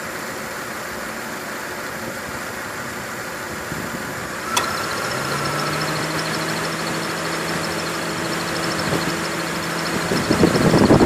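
2002 Honda Accord engine idling with the AC on; a little under halfway through a sharp click, likely the AC compressor clutch engaging, and then a steady whine with a high, fast chirping squeak from the belt. The squeal was cured by new belts and by recharging the AC, which held only half a pound of its 1.5 pounds of R134a through a leaking low-side Schrader valve.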